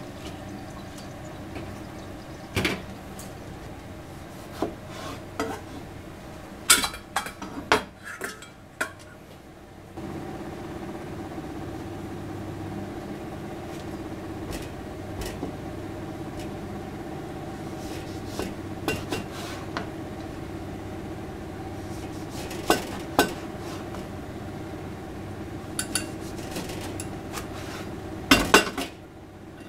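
Kitchen prep: scattered clinks and knocks of stainless steel cups and a kitchen knife on a plastic cutting board while a navel orange is sliced into rounds, over a steady low hum. A quick cluster of louder knocks comes near the end.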